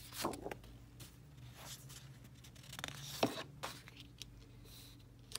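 Paper being handled: a few faint rustles and light taps as sheets and paper labels are lifted and moved, with the sharpest tap about three seconds in.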